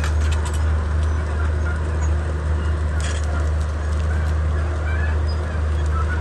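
Komatsu D31P bulldozer's diesel engine running steadily with a deep drone, with short high chirps scattered over it.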